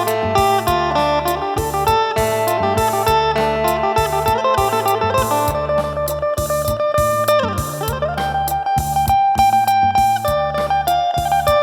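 Amplified phin, the Isan plucked lute, playing a quick melody over a repeating bass line and steady percussion. About eight seconds in, one note swoops down and back up.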